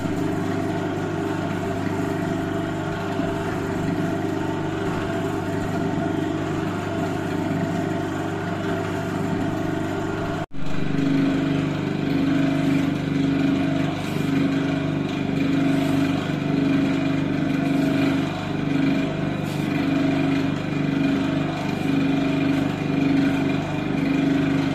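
Dodol stirring machine running, its electric motor and drive humming steadily as the paddle churns the thick dodol. After a brief break about ten seconds in, the hum pulses in an even rhythm.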